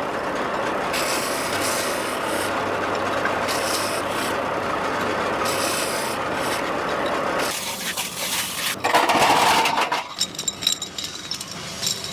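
A steady rasping scrape, as of metal being filed or rubbed down, for about seven seconds. It changes to a louder scrape, then a few light clicks and clinks near the end.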